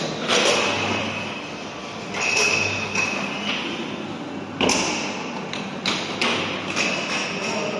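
Coin-operated helicopter kiddie ride running, with a steady low hum under repeated thumps and knocks from its rocking mechanism and a couple of short high beeps.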